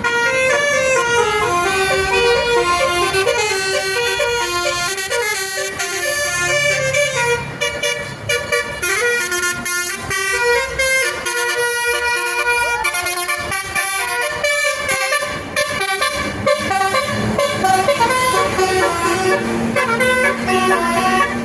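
Indonesian tour bus's Basuri telolet musical horn playing a fast melody, its tones stepping up and down from note to note.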